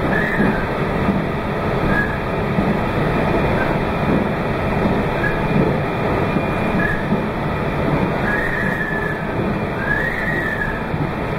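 Meitetsu 2200 series electric train running at speed: a steady rumble and rush of wheels on rails, broken by short high-pitched squeals every second or two, typical of wheel flanges squealing on a curve.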